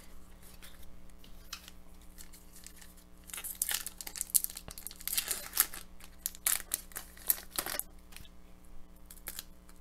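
Foil wrapper of an Upper Deck hockey card pack crinkling and tearing as it is handled and opened. It is a rapid flurry of crackles from about three seconds in until around eight seconds, over a faint steady hum.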